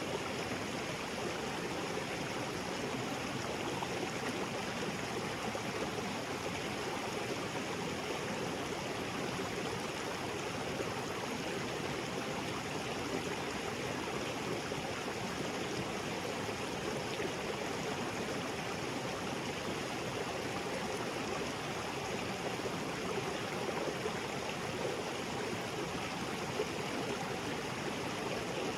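Small waterfall and creek water splashing and flowing over rocks in a steady, even rush.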